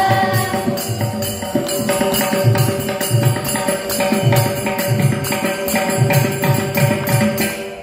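Mridangam and small brass hand cymbals (jalra) keeping a steady Carnatic rhythm over a held drone tone, with the women's group singing fading out in the first half second.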